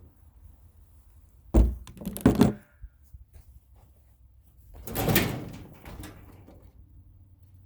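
Metal knocks on a furnace cabinet being taken apart for scrap: two sharp thunks a little under a second apart, then about three seconds later a longer rattling clatter.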